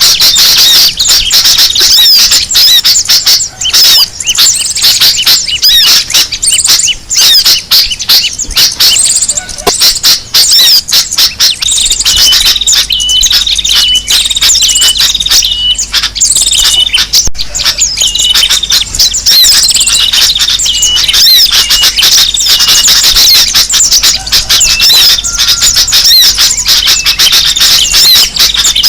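Dense, noisy chorus of sooty-headed bulbuls (kutilang) and other small birds chirping and twittering. From about a third of the way in, one short call repeats about once a second through the chatter.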